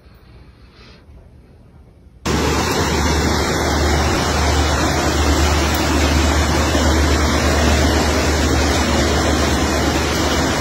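A faint hush for about two seconds, then a loud, steady rushing of floodwater starts abruptly and runs on without a break, with a deep rumble under it.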